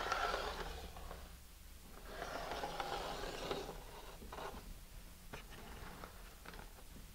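Pencil scratching along a paper rocket body tube as a line is drawn against an aluminum straightedge, two strokes of about a second each. Light clicks and taps follow as the tube is handled.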